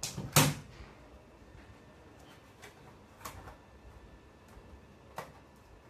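Two sharp knocks right at the start, the second the loudest, then a few single key clicks spread out over the next few seconds as the Dell Inspiron 15 3567 laptop's newly fitted keyboard is tested.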